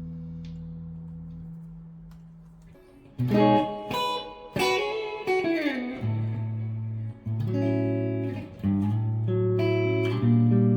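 Electric guitar with neodymium pickups: a held chord dies away, then about three seconds in picked notes start, with a downward-sliding bend, followed by a run of repeated chords.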